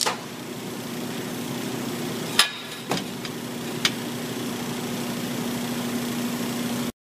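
A TIG welding arc on a magnesium chainsaw case hisses loudly and cuts off right at the start, leaving the welding machine's steady hum. Three sharp metal clicks come about two and a half, three and four seconds in as a steel clamp on the case is handled.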